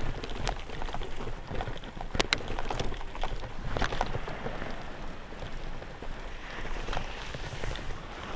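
Bicycle tyres crunching over sand and dried seaweed, with a steady crackle and scattered sharp clicks and rattles from the bike, the loudest a pair about two seconds in.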